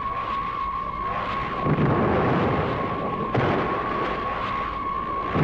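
Giant-monster fight sound effects: a steady high electronic whine over heavy rumbling crash noise, which swells about 1.7 and 3.3 seconds in.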